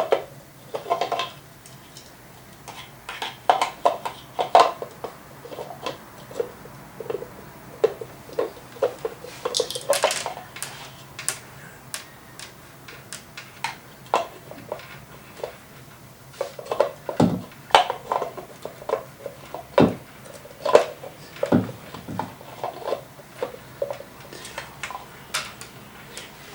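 Irregular clicks, taps and clatter of small hard parts being handled by hand. There is a dense flurry of sharp taps about ten seconds in and a few heavier knocks later on.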